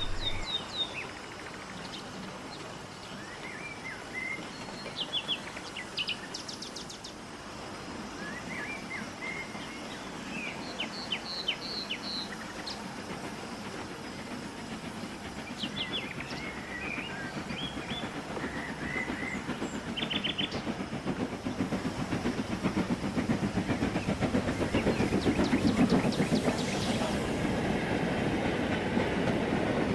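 A train running on rails, a steady rumble that grows louder over the last third, with birds chirping throughout.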